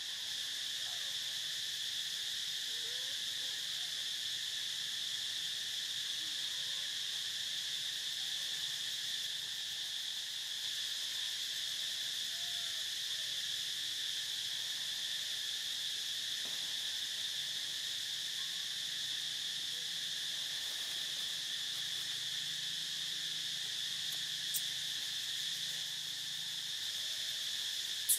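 Steady insect chorus: a continuous high, shrill drone that holds unchanged throughout.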